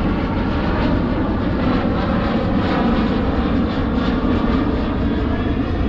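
An aeroplane passing overhead, a loud, steady engine roar with a deep rumble underneath, very noisy.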